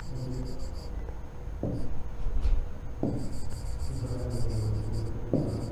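Stylus scratching on a digital pen display in short strokes as words are handwritten, over a steady low hum.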